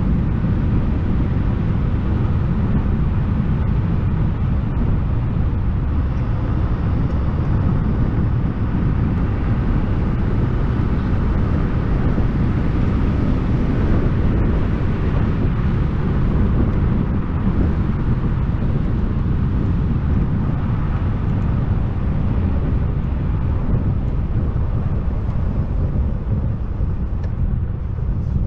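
Steady rumble of wind buffeting the camera microphone, with tyre noise on asphalt, from a YUME X7 electric scooter riding along at speed.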